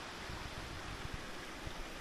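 Steady rushing of running water, with low irregular thumps underneath.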